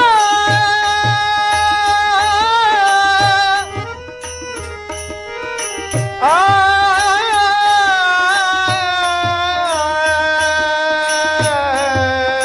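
Marathi abhang (devotional song): a man sings long drawn-out notes over harmonium, tabla and small hand cymbals (taal). The voice drops out for about two seconds around four seconds in, then swoops back up into another long held note while the tabla keeps time.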